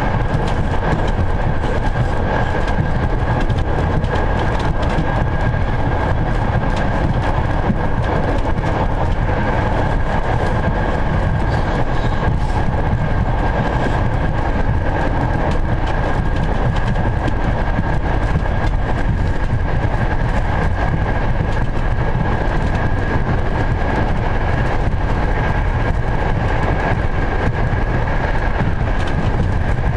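Passenger train running at speed, heard from inside the carriage: a steady, loud rumble with rushing air noise and a thin steady high whine over it.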